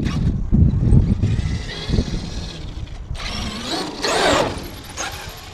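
Traxxas X-Maxx electric RC monster truck driving and jumping, with a faint rising motor whine over a heavy low rumble. A noisy burst about three seconds in and a stronger one about four seconds in, typical of the truck hitting the ground.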